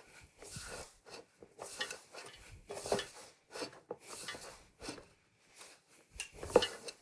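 Hands squeezing and pressing crumbly pie dough inside a ceramic mixing bowl, giving irregular rubbing and scraping against the bowl, with a louder thump near the end.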